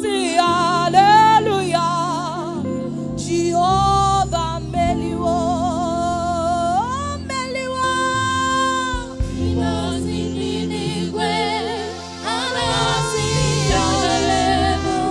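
Gospel praise singing: a sustained, melismatic lead voice with vibrato over keyboard and bass accompaniment.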